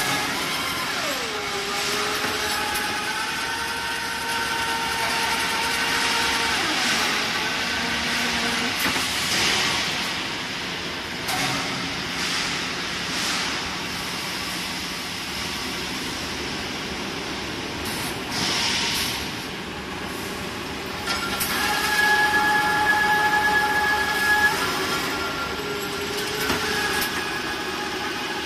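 Rolling mill line with pinch rollers running: a continuous mechanical din with whining motor tones that slide down in pitch about a second in and again around seven to eight seconds in. Short hisses come twice, and the din grows louder with steady whines near the end.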